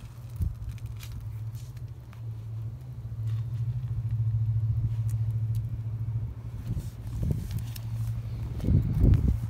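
A steady low rumble, louder in the middle, with a cluster of low thumps near the end.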